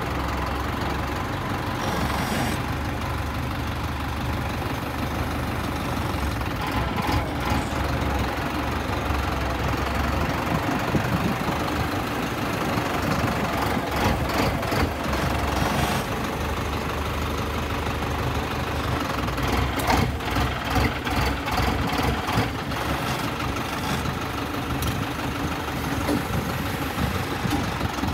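High-clearance tractor engine running steadily as the tractor drives through sugarcane rows, with short clusters of clicks and rustles at times.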